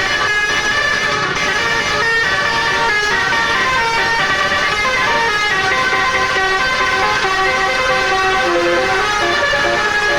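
Indonesian telolet 'basuri' bus horn, a multi-trumpet air horn playing a tune. Several notes sound together and step up and down in pitch without a break.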